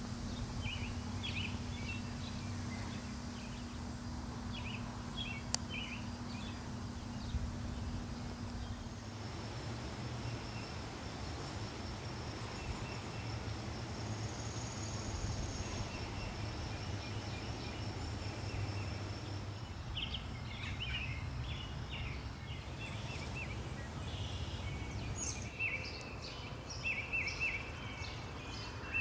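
Outdoor ambience of birds chirping and calling, sparse at first and busier in the last third, over a steady low rumble of background noise.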